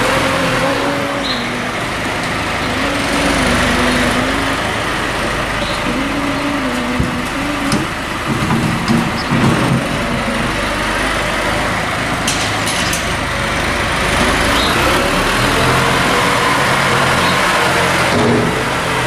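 McCormick tractor's diesel engine running and manoeuvring with its front loader, its pitch rising and falling as the throttle changes. A few sharp knocks come about two-thirds of the way through.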